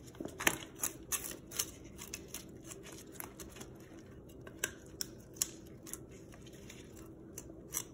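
Kitchen knife scraping the scales off a whole yellowtail snapper: short scrapes at an irregular pace of about two a second.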